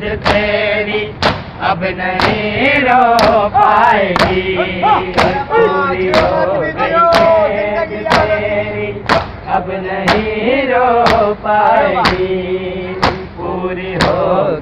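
A crowd of men beating their chests in unison in matam, about one loud slap a second, over a group of male voices chanting a noha lament.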